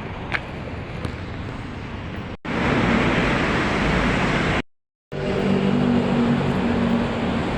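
Steady noise of road traffic. It cuts off abruptly twice: once about two and a half seconds in, coming back louder, and again a couple of seconds later, when it drops to silence for about half a second before resuming.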